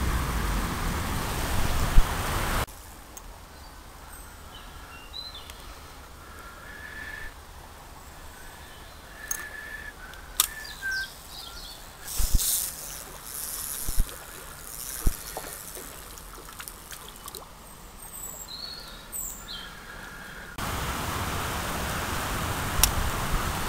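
Shallow river water rushing close by, then a much quieter riverside with small birds chirping and a few sharp clicks. About three seconds from the end it changes back to a steady rush of water pouring over a low weir.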